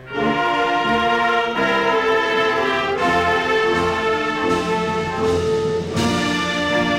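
Orchestral music with brass playing held chords that change every second or two.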